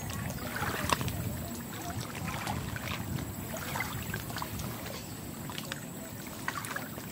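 Shallow water lapping over a stony edge, with small splashes and clicks of stones as hands move rocks in the water; the sharpest click comes about a second in.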